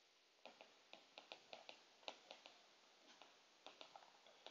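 Faint, irregular clicks of a stylus tip tapping on a tablet screen while handwriting.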